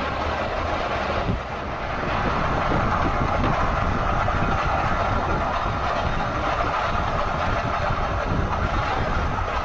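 2016 Ford F-150 driving, a steady road and drivetrain drone with a strong mid-pitched hum and a low rumble; the owner takes the noise for a dry bearing.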